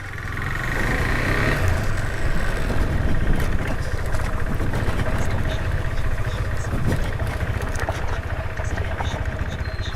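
A vehicle engine running with a steady low drone, getting louder over the first second or so as it pulls away.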